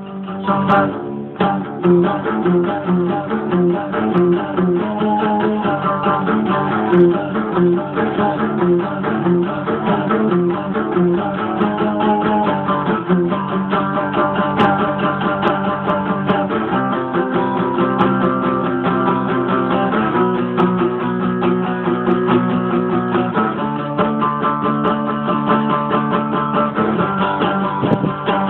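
An acoustic guitar strummed with an electric guitar playing along, the chords changing every few seconds, with no singing.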